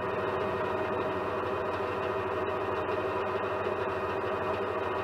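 Metal lathe running steadily with its spindle turning a large steel workpiece: a constant machine hum with several held tones and no change in speed.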